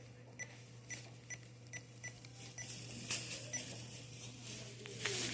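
Checkout register beeping in an even series of short high beeps, about two a second, that stop about two seconds in, followed by scattered clicks and rustling.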